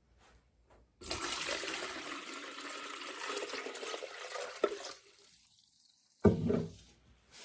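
Water pouring into the top-fill tank of an ultrasonic cool-mist humidifier for about four seconds, the sound rising slightly in pitch as the tank fills. A brief clatter follows near the end.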